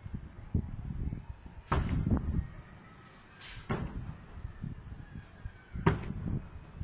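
Fireworks exploding: a string of sudden booms with rumbling tails, the loudest about two seconds in and about six seconds in.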